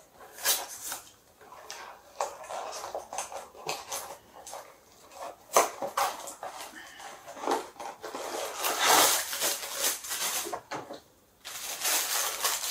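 Plastic candy packaging being handled and worked open by hand: a string of clicks, scrapes and crinkling, densest about nine to eleven seconds in, with a short pause before more rustling near the end.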